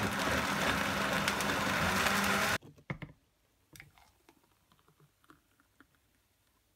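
Countertop blender running at full speed, blending peeled mandarins and oranges with water into pulpy juice, cutting off suddenly about two and a half seconds in. After it, faint clicks and the quiet splash of the juice being poured into a glass.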